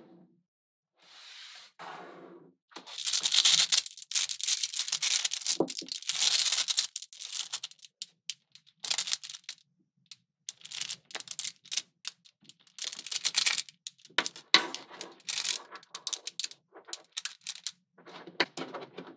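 Small magnetic balls clicking and rattling against each other as a clump of them is handled and strands are pulled off. A dense, loud rattle runs from about 3 to 7 seconds in, then gives way to short, scattered clusters of clicks.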